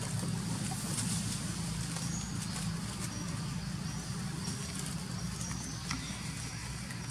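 Outdoor background noise: a steady low rumble, with faint scattered clicks and a few short high chirps.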